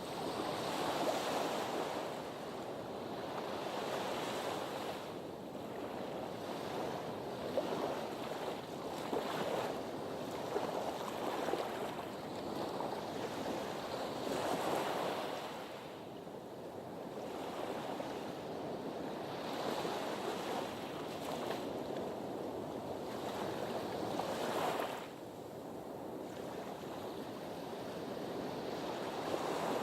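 Sea waves washing against a harbour breakwater, a steady rush of surf that swells and falls back every few seconds.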